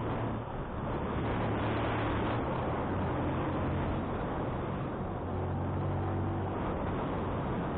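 Motorcycle engine running steadily under the rush of wind noise on the microphone while riding uphill, with steady low engine tones beneath the wind. The wind briefly drops about half a second in.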